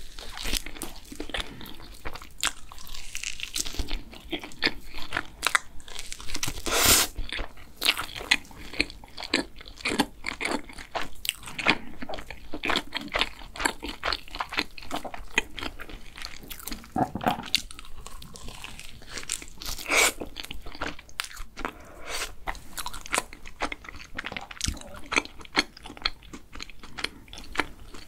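Close-miked chewing and biting of a black sesame cream-filled doughnut, with dense irregular mouth clicks and soft squishing as the fried dough and cream are chewed. A louder bite comes about seven seconds in and another about twenty seconds in.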